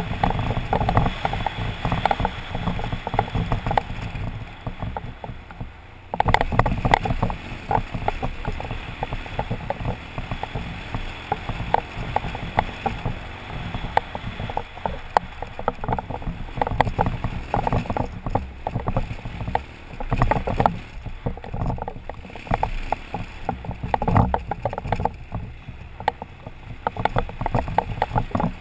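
Adventure motorcycle riding up a rough gravel mountain track: the engine runs under constant jolting, with frequent knocks and rattles as the bike goes over stones and ruts.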